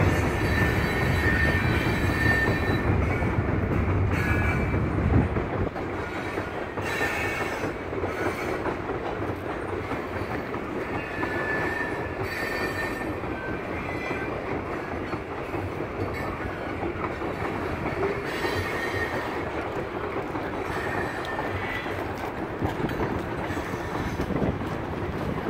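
Loaded covered hopper cars of a CN sand train rolling across a trestle bridge: a steady rolling rumble with brief faint wheel squeals that come and go. The low rumble is heavier for the first five seconds, then settles lower.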